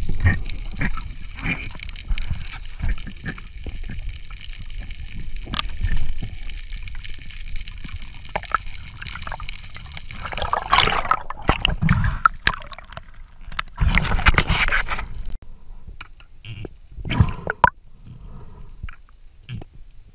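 Underwater sound from a spearfisher's camera: water gurgling and swishing, with scattered clicks and knocks, and two louder rushes of water, one about halfway through and one a few seconds later.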